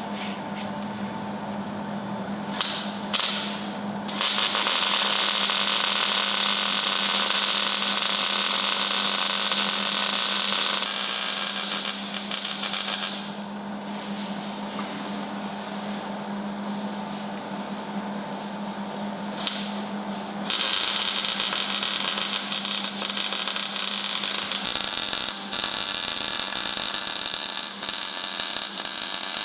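Arc welding on a steel rear axle housing: a dense sizzling crackle for about nine seconds, a pause, then another long run of welding from about two-thirds of the way through, over a steady electrical hum.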